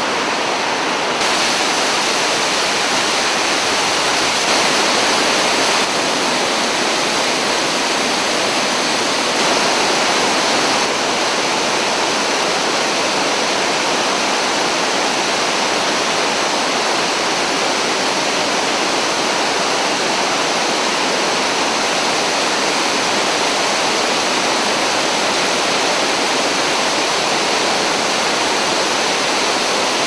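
Iguazu Falls: a steady, loud, unbroken rush of heavy falling water, its level shifting slightly a few times.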